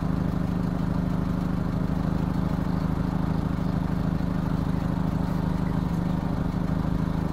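Car engine idling, a steady low hum that does not change.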